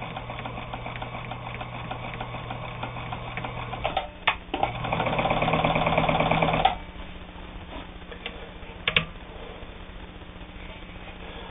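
Necchi Supernova Ultra sewing machine stitching at a slow, steady pace. After a click about four seconds in, it runs faster and louder for about two seconds, then stops abruptly. A couple of single clicks follow.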